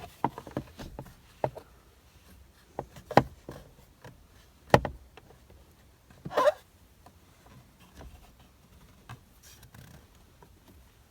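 Metal screwdriver tip clicking, knocking and scraping inside a VW steering wheel hub while it is worked against the airbag's spring retaining clip, with irregular sharp clicks, the loudest a little before the middle, and a short scrape after it.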